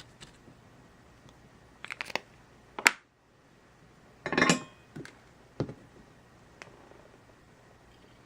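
A few separate clicks and clacks of small hard tools being handled and set down on a workbench. The sharpest is about three seconds in, with a short rattling cluster of clacks about a second and a half later.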